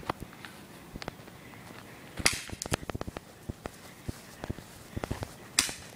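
Footsteps on asphalt, with two sharp airsoft gun shots, one a little over two seconds in and one near the end.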